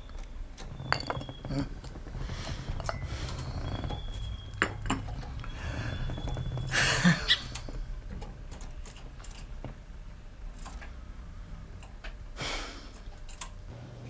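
Scattered light clicks and clinks of small hard objects being handled, with a louder rustling clatter about seven seconds in.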